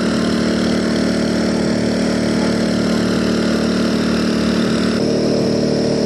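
An engine running steadily at idle, with a dense, even hum; its tone shifts slightly about five seconds in.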